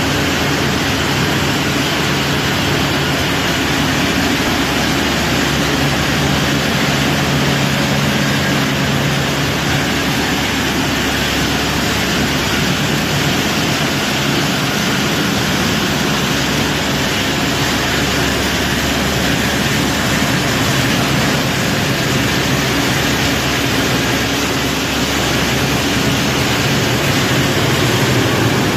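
Herbold HV50 plastic agglomeration line running: a loud, steady machine noise of motors and a blower, a dense even rush over a low hum.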